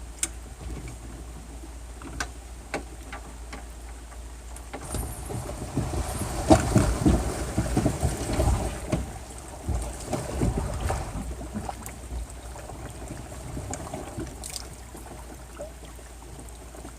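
Wind rumbling on the microphone, with scattered knocks and clicks, and a louder stretch of bumping and rustling in the middle.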